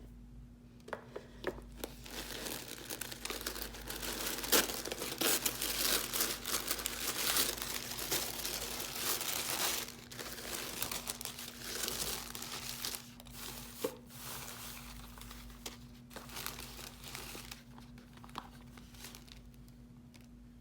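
Packaging wrapping being handled and opened, crinkling and rustling in dense stretches with sharp crackles. It is busiest through the first half and thins out toward the end, over a faint steady hum.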